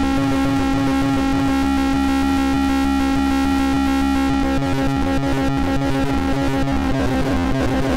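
Finegear MODMIX analog mixer in a no-input feedback loop: a steady droning tone over a stuttering, rhythmic low buzz. About four and a half seconds in, the low pulsing switches to a faster, choppier pattern as the channel sends are changed.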